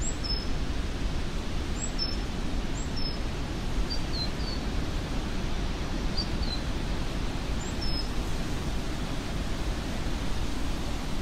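Wind in trees: a steady, deep rushing, with a small bird giving several short, high chirps scattered through it.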